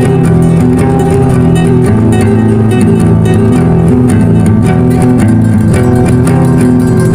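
Instrumental background music led by guitar, plucked and strummed, at a steady level.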